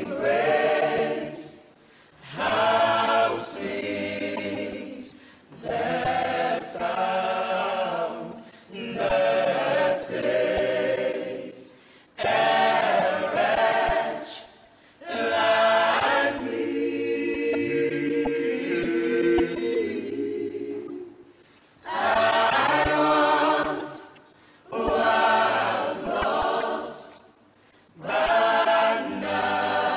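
Choir singing a cappella in short phrases with brief pauses between them, holding one long chord about halfway through.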